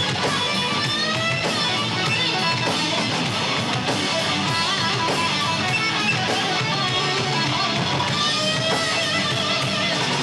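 A live rock band playing loud, with an electric guitar lead line that bends pitch up and down over the bass and drums.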